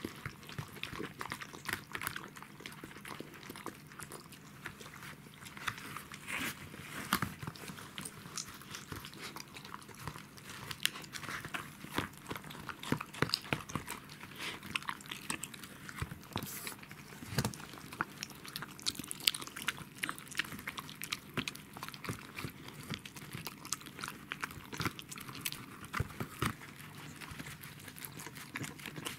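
Pembroke Welsh corgi eating soupy food from a bowl, licking and chewing: a fast, irregular run of wet smacks and clicks.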